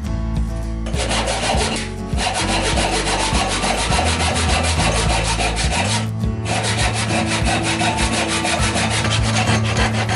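Hand saw cutting through an oak board in quick rasping strokes, broken by two short pauses.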